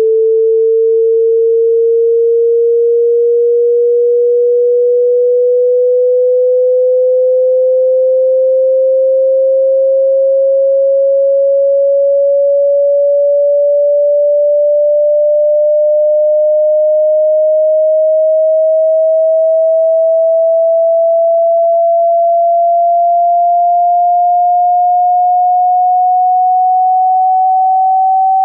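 A single pure sine tone gliding slowly and evenly upward in pitch at a constant loudness: the frequency sweep of a hearing test.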